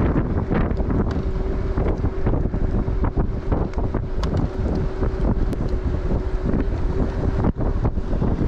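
Wind buffeting the microphone while riding a Bird electric scooter, with a steady hum from the scooter's motor underneath and scattered small clicks and rattles from the ride.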